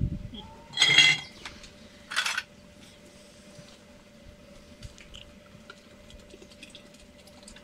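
Metal ladle clinking and scraping in a large cauldron of hot tomato-pepper menemen as it is ladled into glass jars, with small scattered clinks. About a second in there is a short loud call, and a hissing shush about a second after it.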